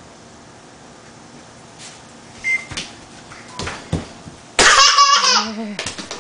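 A young child's high, wavering squeal of excitement, lasting about a second, comes about two-thirds of the way through. Before it there is a short high beep and a few light knocks of a ball against the toy hoop and floor.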